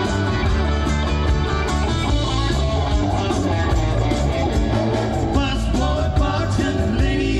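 Live rock band playing, with electric guitar to the fore over bass and drums.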